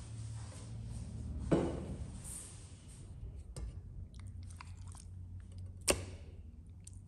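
Raw poultry breast fillets handled and laid into an enamel pot of milky liquid: soft wet squelching and small clicks, with a knock about a second and a half in and a sharper knock near six seconds, over a low steady hum.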